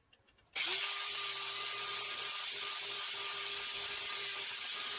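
Corded angle grinder with a wire cup brush switched on about half a second in, then running with a steady whine and a loud scouring hiss as it brushes a steel channel clean for welding.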